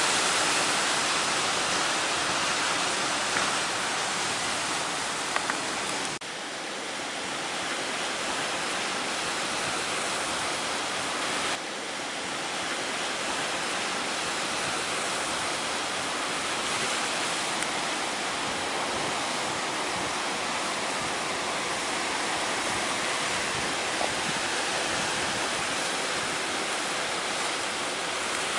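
Strong wind and high surf making a steady, dense rushing noise, with sudden brief drops in level about six and eleven seconds in.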